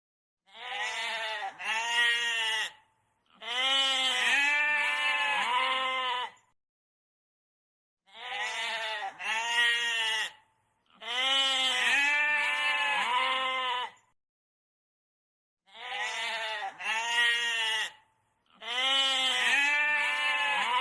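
Goat bleating: two short quavering bleats, then one long quavering bleat, the same sequence heard three times with silent gaps between.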